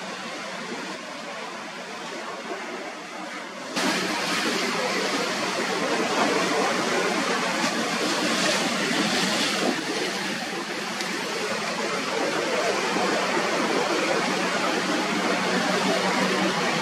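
Steady rushing noise of rough, breaking sea and wind, with no clear engine note. It jumps abruptly louder about four seconds in and stays loud.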